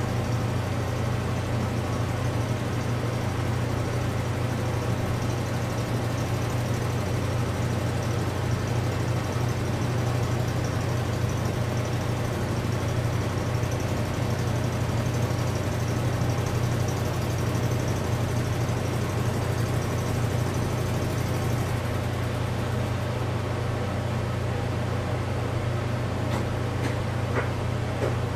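An engine running steadily at an even pitch, with a few light clicks near the end.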